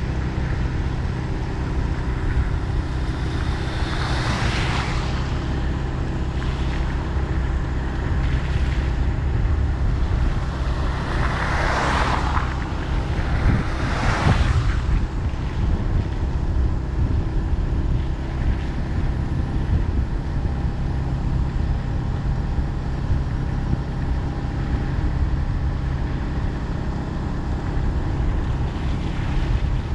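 Steady engine and road rumble of a vehicle driving along a mountain road, with a few brief whooshing swells near the middle.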